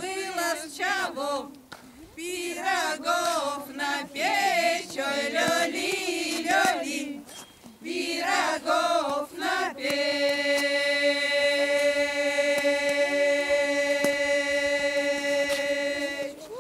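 Women's folk ensemble singing a Russian spring-calling song (zaklichka) unaccompanied. The melody rises and falls in short phrases, and about ten seconds in the voices settle on one long held note that lasts until near the end.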